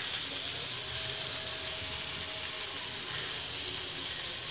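Onion-and-egg masala frying in an oiled pan on the stove, giving a steady, soft sizzle.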